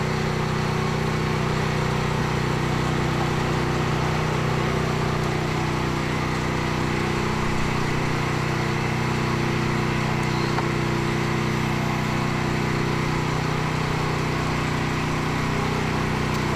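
A motor running steadily: a low, even drone that holds the same pitch and level throughout.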